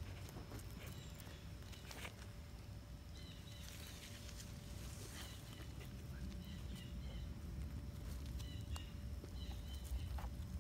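Two dogs scuffling in loose garden dirt and tugging at a stick: soft rustles, scrapes and scattered small clicks. Birds chirp faintly several times.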